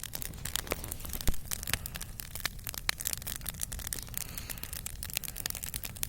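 Wood campfire crackling: irregular sharp snaps and pops, one louder pop a little over a second in.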